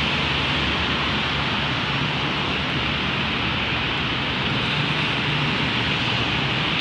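Steady city background noise: an even hiss with a faint low hum that comes and goes.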